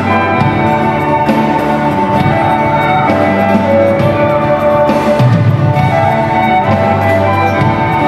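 Live band playing an instrumental passage of a Polish Christmas carol (kolęda), with long held notes.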